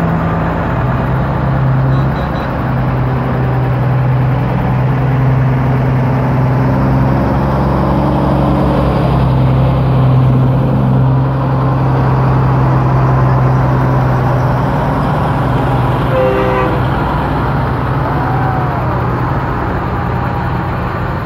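Heavy trucks pulling flatbed and lowboy trailers slowly past close by: a steady diesel engine drone with tyre and road noise, easing off a little in the last few seconds.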